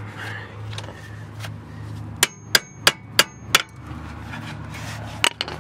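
Hammer blows on a rusted brake disc and hub: five quick metallic strikes with a ringing tone, about three a second, then one more a couple of seconds later. The car's brakes have rusted and seized, and the blows are to knock the rust loose.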